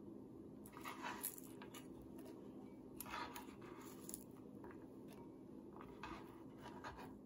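A few soft taps and rustles as chopped green onion pieces are scooped by hand off a plastic cutting board and dropped into a bowl, over a steady low room hum.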